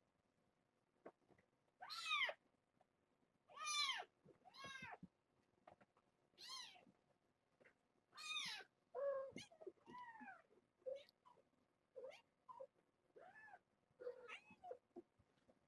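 About three-and-a-half-week-old kittens mewing over and over: about a dozen high, arching cries that rise and fall in pitch, the loudest in the first half and shorter, lower ones later on.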